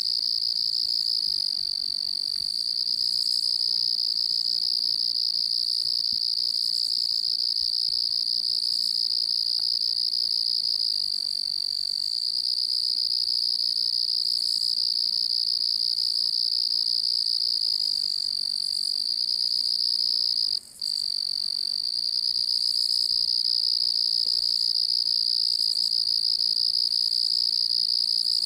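Crickets chirping in a constant chorus, a steady high-pitched trill, with one brief break about twenty seconds in.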